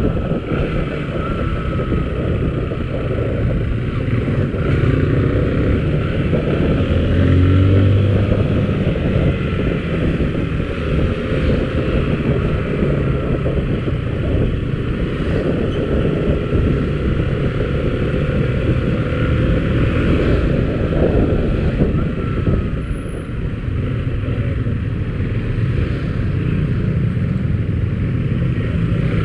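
Motorcycle running steadily on the road, heard from the riding rider's camera, its engine mixed with a steady low rumble of road and wind noise.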